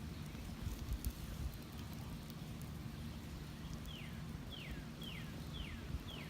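Wind rumbling on the microphone, with a bird calling a run of five short whistles that fall in pitch, about two a second, in the second half.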